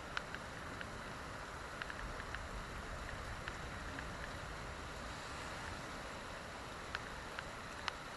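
Heavy thunderstorm rain pouring down as a steady hiss, with a scattering of sharp ticks, a few louder ones near the start, around two seconds in and near the end.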